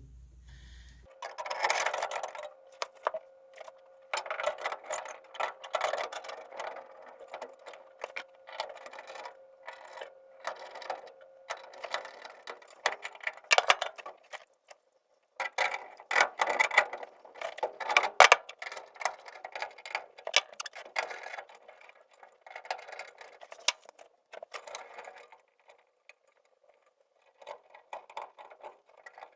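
Clicking, clinking and scraping of hand tools on sheet metal and fittings as a gas furnace's burner assembly is slid back in and bolted into place, in bursts with short pauses.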